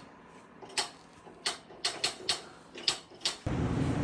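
A series of about seven sharp, irregular clicks and knocks. Near the end a steady low hum with noise cuts in suddenly.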